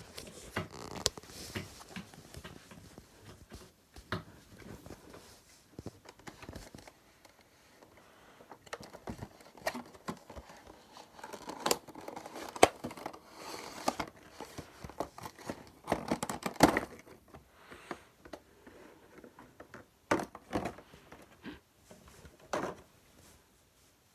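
Hands opening a cardboard model-aircraft box: the cardboard flaps scrape and rustle and the packaging crinkles, with irregular clicks and taps.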